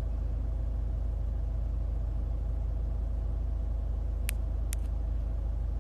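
Steady low rumble of a car's running engine heard from inside the cabin, with a faint steady hum above it. Two short clicks come close together about four and a half seconds in.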